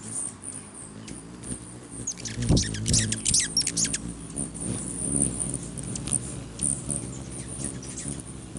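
Rufous hummingbirds buzzing close by, their wings giving a low hum throughout. About two seconds in comes a burst of rapid, squeaky chittering calls lasting roughly two seconds as the birds squabble over the perch.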